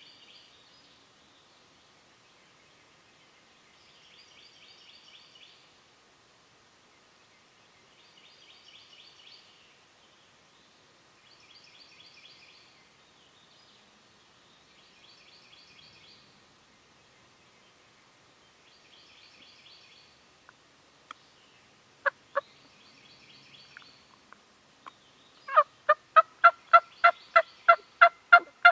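Turkey calling: a few sharp single clucks, then, about 25 seconds in, a rapid run of about a dozen loud hen-turkey yelps close by, the kind of yelping a hunter makes on a turkey call. Faint, high, rattling calls repeat every four seconds or so in the background before it.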